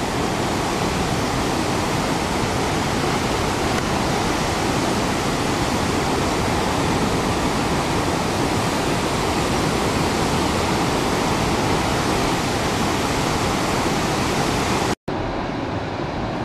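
Fast river rapids and white water rushing: a steady, loud noise of water. About fifteen seconds in it drops out for an instant and comes back duller, with less hiss.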